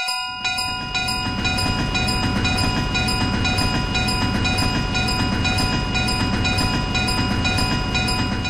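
Railway level-crossing bell dinging steadily about twice a second while a train runs past. The train's rumble and wheel noise come in about half a second in and hold steady under the bell.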